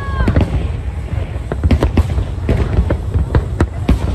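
Large aerial fireworks display: shells bursting in a rapid, irregular series of sharp bangs over a continuous low rumble.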